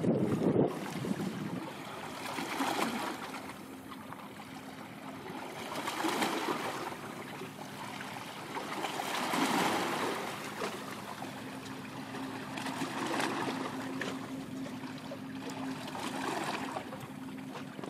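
Waves washing in, swelling about every three to four seconds, over a steady low hum.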